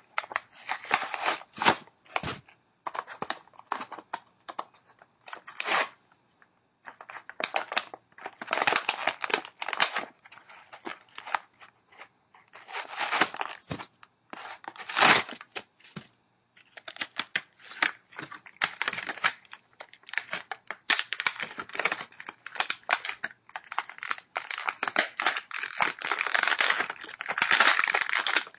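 A diecast toy car's blister pack being torn open by hand: the cardboard backing card rips and the clear plastic blister crinkles and crackles in irregular bursts with short pauses between.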